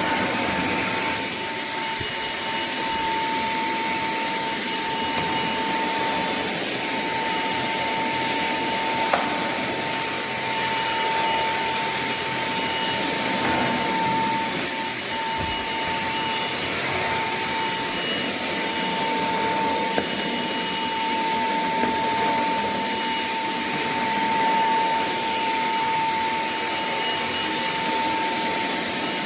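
Cordless handheld vacuum cleaner motor running steadily, a constant rush of air with a steady high whine, and a couple of light knocks along the way.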